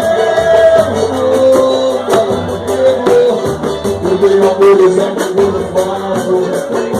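Samba group playing a song, with a singing voice over guitar-type accompaniment and a steady percussion beat.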